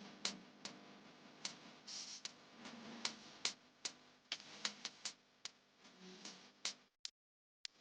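A run of sharp clicks, about two or three a second, that cuts off abruptly into silence near the end.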